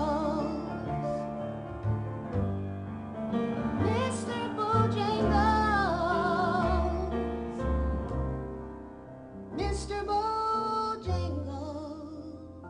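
A woman singing a ballad live into a microphone over instrumental accompaniment, holding long notes with a wide vibrato about halfway through.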